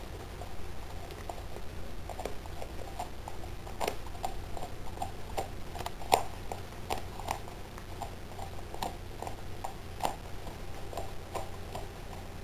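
A boxer dog chewing a whole raw fish: irregular crunches and clicks of its jaws, a few a second, the sharpest about six seconds in.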